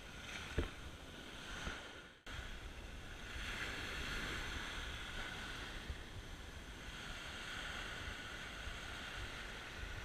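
Small surf breaking and washing up a sandy shore, swelling and fading as each wave runs in, with wind rumbling on the microphone. A single thump about half a second in, and the sound cuts out for a moment just after two seconds.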